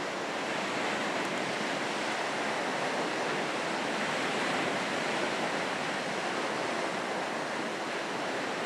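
Steady, even rushing of sea surf, with no boat engine standing out.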